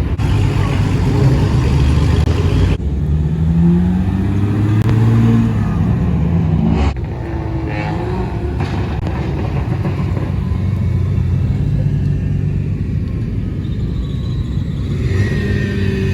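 Car engines rumbling, one revving up and down a few seconds in. The sound changes abruptly twice.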